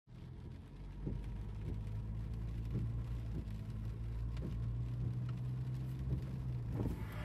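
Car driving on a wet road, heard from inside the cabin: a steady low engine and road drone with a few faint knocks.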